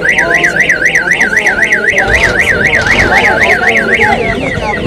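Electronic alarm siren warbling rapidly up and down, about four cycles a second, then switching near the end to a quicker run of falling chirps.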